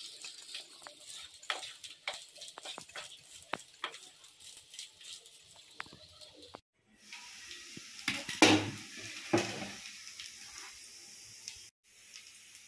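A wooden spatula stirs and scrapes rice in a nonstick frying pan, with many short clicks and scrapes against the pan. It then gives way to a steady frying hiss broken by two louder clatters.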